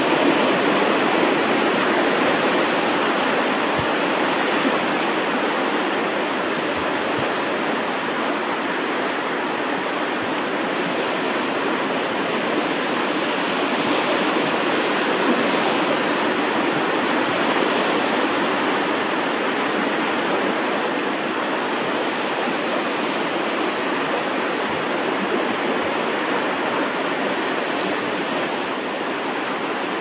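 Ocean surf washing over a rocky shoreline: a steady, continuous rush of water with no distinct breaks between waves.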